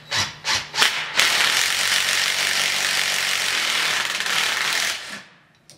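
Hand ratchet wrench turning the forcing screw of a homemade hub puller on a Triumph GT6 hub. A few separate clicks come first, then about four seconds of fast, continuous ratcheting that stops abruptly.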